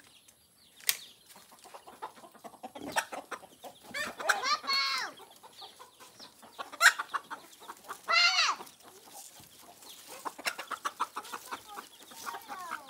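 Chickens clucking, with two louder drawn-out squawks about four and eight seconds in and a run of short clucks near the end. Scattered sharp clicks and rustles of leaves and stems being handled run underneath.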